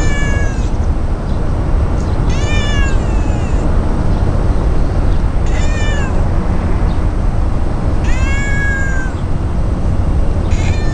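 Brown tabby-and-white cat meowing in a cute voice, one short call every two to three seconds.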